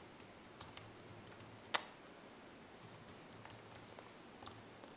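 Typing on a computer keyboard: a few scattered keystrokes, with one louder click a little under two seconds in.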